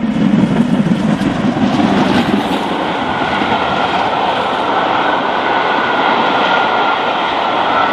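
A train running at speed: a loud, steady rushing noise, heavier and lower in the first couple of seconds, with a faint high steady tone joining about halfway through.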